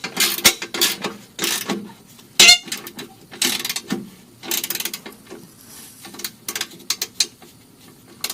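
Hand tools and metal exhaust parts being worked: irregular clicks, knocks and rasping scrapes as a clamp is fitted and tightened on the exhaust pipe flange, with one squeaky scrape about two and a half seconds in.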